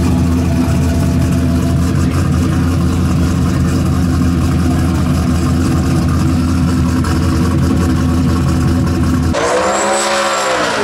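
Turbocharged V8 of a drag-race Chevy Nova idling steadily. About nine seconds in it gives way to the car's burnout: the engine revs up and back down with a high whine over it.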